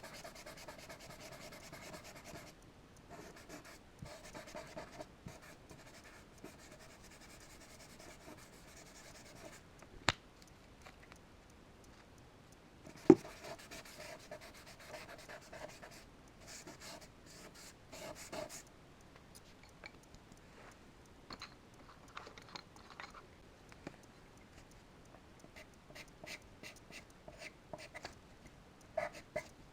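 Charcoal scratching across paper in runs of drawing strokes, thinning to short separate strokes in the second half. Two sharp taps cut through, the louder about 13 seconds in.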